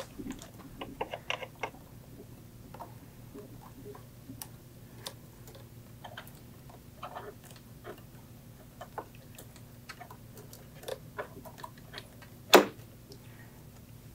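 Scattered light clicks and taps of hands working speaker cables into spring-loaded cable clips and binding posts on the back of a loudspeaker, with one sharper click near the end.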